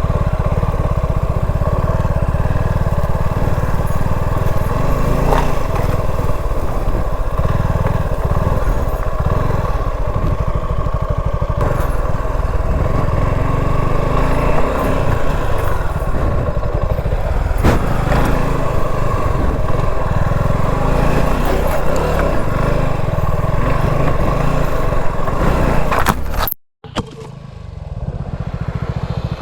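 Motorcycle engine running under load while riding an off-road dirt track, over a heavy low rumble, with a few sharp clicks. About 26 seconds in the sound cuts off suddenly and a quieter engine sound follows.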